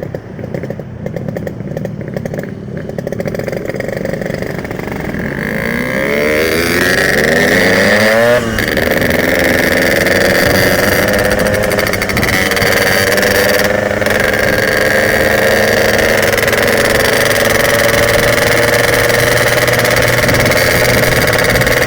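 Yamaha RX-King's 135cc single-cylinder two-stroke engine accelerating hard. The revs climb steeply, drop at a gear change about eight seconds in, then hold high and creep slowly upward as the bike runs flat out.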